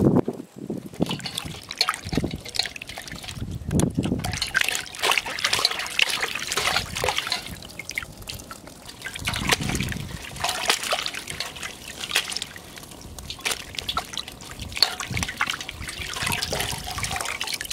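Hands washing vegetables in a metal basin of water: water sloshing, splashing and dripping in uneven bursts.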